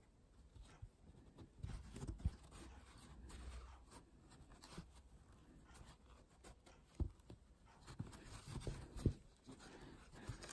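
Faint scratching and rubbing of a metal crochet hook drawing yarn through stitches by hand, with a few soft handling knocks.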